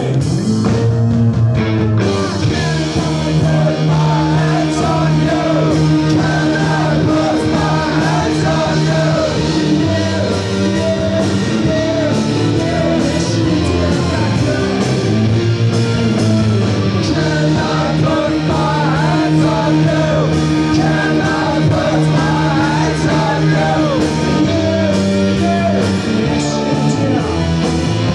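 Live rock band playing: electric guitars, bass and drums with a singer's voice over them. The sound fills out about two seconds in.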